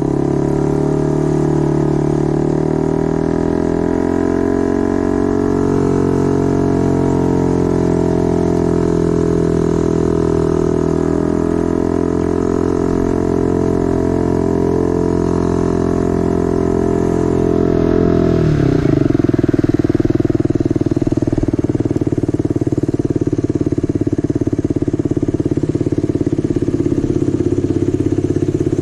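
Motorcycle engine running through a temporary exhaust on a test ride, holding a steady note. About 18 seconds in, the pitch drops sharply and the engine settles into a lower, choppier beat.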